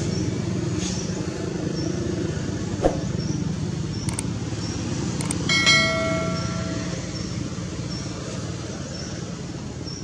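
Steady low rumble of road traffic, with a bright chime from a subscribe-button sound effect about five and a half seconds in, ringing out and fading over a second or so. A sharp click about three seconds in, and faint high chirps repeating about once a second underneath.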